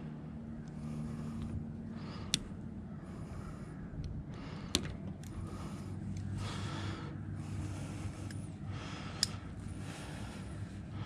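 Three sharp snips, a few seconds apart, as hand cutters clip the cable ties holding a solar panel's coiled leads. Breathing close to the microphone between the snips, over a steady low hum.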